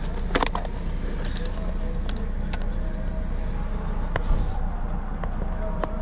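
Scattered sharp clicks and light metallic taps, about half a dozen, over a steady low rumble.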